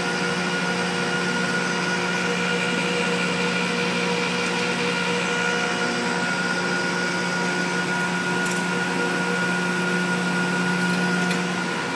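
Steady hum and rushing hiss of a grain load-out system running while the loading spout fills a hopper-bottom trailer, several even machine tones over the hiss.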